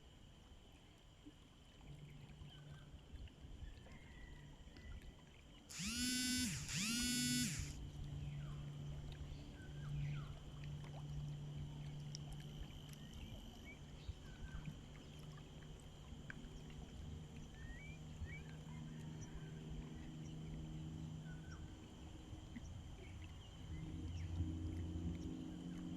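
Outdoor ambience with a steady high tone, faint scattered chirps and a low hum that comes and goes. Two short, loud animal-like calls sound close together about six seconds in.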